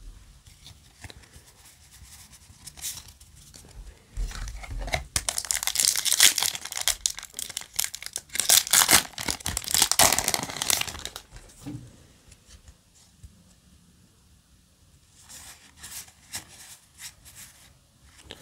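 Foil wrapper of a Yu-Gi-Oh! booster pack being torn open and crinkled by hand, loudest from about four to eleven seconds in, with lighter crinkling near the end.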